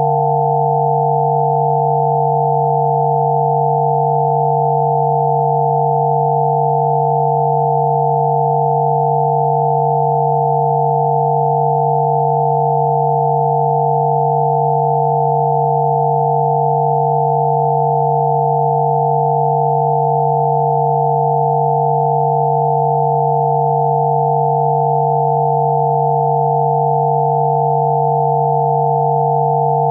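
Synthesized 'healing frequency' sine tones: several pure tones held together, one low and a cluster of higher ones, steady and unchanging.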